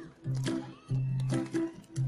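Live band playing an instrumental passage over the stage PA: a rhythmic pattern of strummed guitar chords, about two hits a second.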